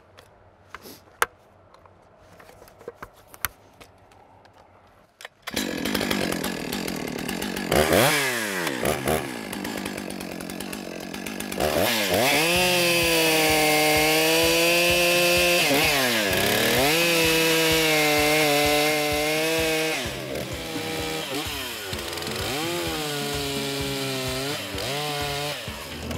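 Stihl two-stroke chainsaw starting up about five seconds in, then revving and cutting into a tensioned limb in several passes, its engine pitch sagging and climbing back between cuts.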